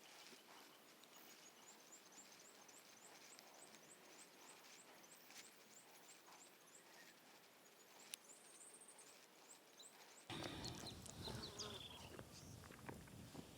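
Quiet forest ambience with a short, high chirp repeating about twice a second from a small forest creature. About ten seconds in the background abruptly gets louder, with scattered clicks and other animal calls.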